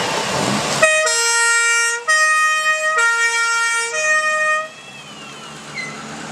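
Two-tone siren (Martinshorn) of a vintage emergency vehicle, starting about a second in and alternating between a higher and a lower tone roughly once a second, then stopping after about four seconds.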